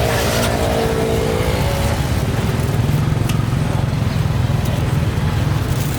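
Road traffic running steadily past, cars and motorbikes giving a continuous low rumble, with one engine's tone standing out in the first couple of seconds.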